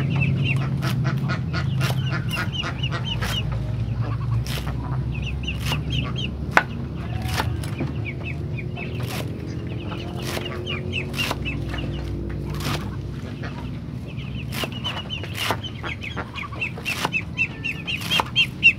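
A cleaver chopping water spinach, sharp knocks about twice a second that come faster near the end. Poultry cluck and call in the background throughout.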